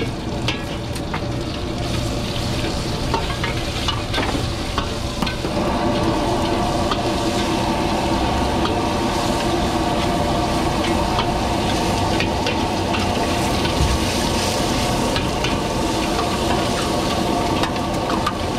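Egg and rice frying in a carbon-steel wok over a high-flame gas burner: a steady loud sizzle, with clicks and scrapes of a metal ladle against the wok in the first few seconds. A steady hum joins the sizzle about five seconds in.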